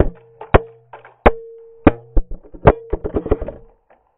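A helmet-mounted GoPro camera knocking and clattering as it falls loose and tumbles onto steps: a series of hard knocks, coming faster and closer together before they stop near the end as the camera comes to rest.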